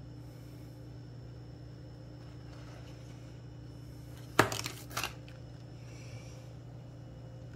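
Steady low hum, broken about four and a half seconds in by a short, loud crinkling clatter and a smaller one half a second later.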